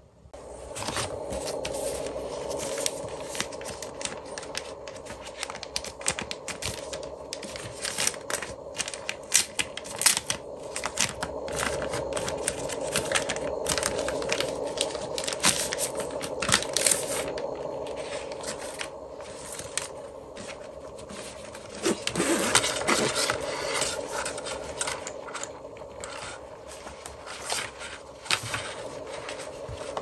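Crinkling and scraping of thin white protective wrap as it is pulled off a dark camera carrying case, with light clicks and rubbing as the case is handled.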